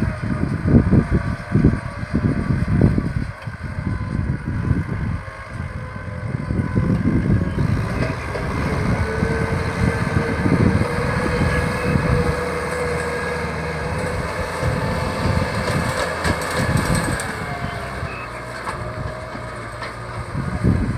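Kubota tractor's diesel engine running steadily under load while ploughing a rice field. Irregular low thumps come through in the first few seconds.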